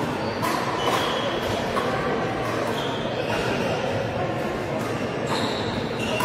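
Pickleball paddles striking the hollow plastic ball on several courts: sharp pops at irregular intervals, some with a brief ringing tone after them. Under them runs a steady murmur of voices in a large, echoing sports hall.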